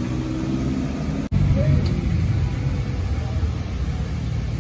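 BMW M2's straight-six engine rumbling deeply at low revs as the car rolls slowly. There is a sudden brief dropout about a second in, after which the low rumble comes back louder.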